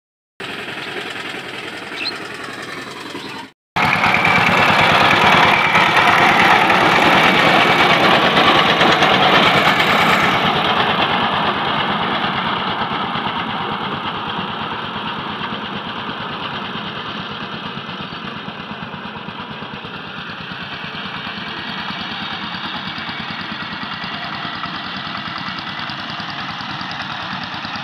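Two-wheel power tiller's single-cylinder diesel engine running steadily under load while tilling, with a rapid even pulse. It cuts in loud a few seconds in, after a softer stretch, then slowly fades as the tiller moves away.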